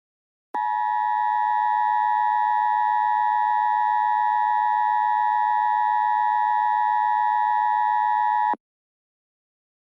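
Emergency Alert System attention signal: the steady two-tone 853 Hz and 960 Hz alert tone that announces an emergency message. It starts abruptly about half a second in, holds unchanged for about eight seconds, and cuts off sharply.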